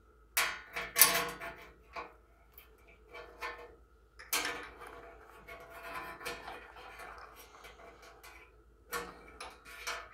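Telescoping magnetic pickup tool scraping and clinking against the edge of a drilled hole in thin sheet metal as it is pushed in and worked around to gather loose drill shavings. Irregular scrapes and knocks: a quick run of them at first, a longer scrape about four seconds in, and another knock near the end.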